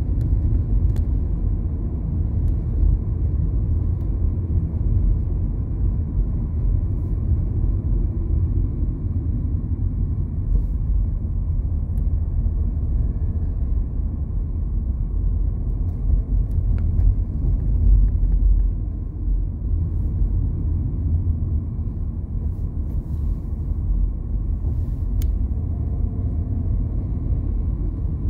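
Steady low rumble of a car driving on a highway, engine and tyre noise, with a few faint ticks.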